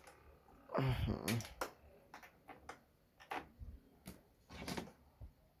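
Scattered light clicks and knocks of hands handling test gear and a clamp meter, with two brief wordless voice sounds from a man, about a second in and again near the end.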